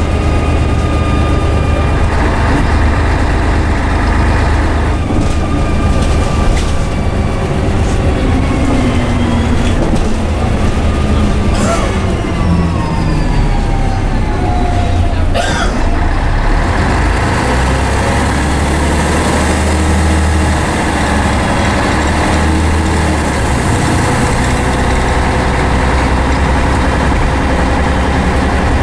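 Scania N113CRB bus's rear-mounted diesel engine and Voith automatic gearbox running on the move, heard from inside the saloon. Around the middle, pitched whines fall in pitch over several seconds, with two sharp knocks. After that it settles into steady running with a higher hiss over it.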